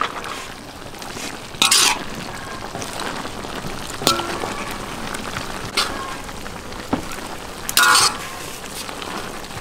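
Pork liver and bell peppers sizzling steadily as they are stir-fried in a wok, with a metal spatula scraping against the pan every second or two; the loudest scrapes come about two seconds in and near the end.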